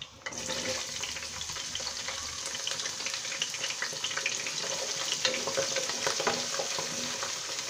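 Chopped onion dropped into hot oil in a pot: it starts sizzling suddenly about a third of a second in, then keeps frying with a steady hiss and small crackles while a wooden spoon stirs it.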